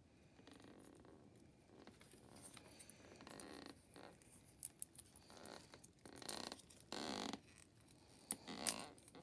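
Rustling and scraping of card as hands fold a small paper-craft toy chair close to the microphone, in irregular bursts, with a few sharp clicks near the end.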